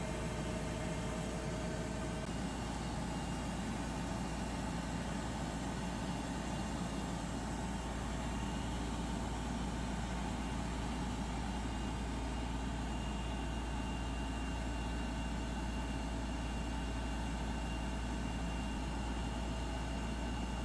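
Schramm 450WS drilling rig running steadily at a constant engine speed.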